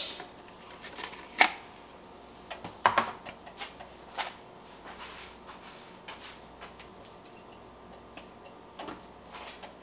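A few sharp clicks and taps from kitchen handling, loudest three spaced about a second and a half apart, then smaller scattered ticks.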